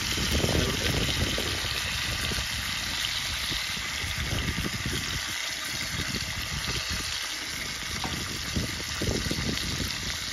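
Crappie fillets frying in hot butter in a cast-iron skillet, giving a steady sizzle, with an uneven low rumble underneath.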